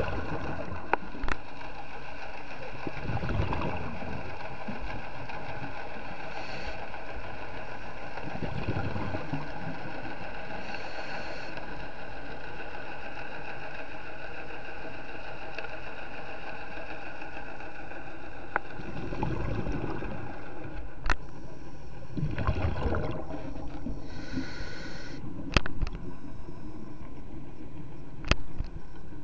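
Underwater sound of a scuba diver breathing through a regulator: exhaled bubbles rumble out several times, with short hisses between, over a steady mechanical hum.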